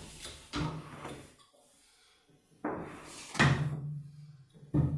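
A few knocks and clunks of the Disc-O-Bed's metal tube frame as the upper cot is moved down and its plastic discs are seated on the round tubes. The loudest comes about three and a half seconds in, and some are followed by a short low ring.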